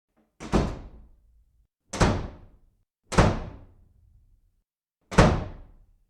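Four heavy thuds, each sharp at the start and dying away over about half a second, at uneven gaps of one to two seconds.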